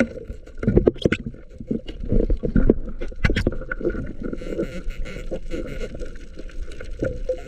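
Underwater noise of water rushing past the microphone, broken by irregular knocks and clicks, the sharpest about a second in and about three seconds in, as the diver moves over the reef rocks toward a spiny lobster.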